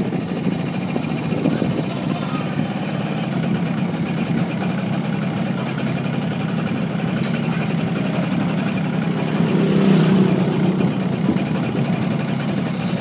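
Engine of a slowly moving vehicle running steadily, a little louder about ten seconds in.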